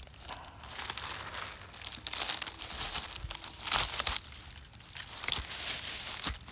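Dry leaf litter rustling and crunching, with several brief louder crunches, as someone shifts their feet in fallen winter leaves.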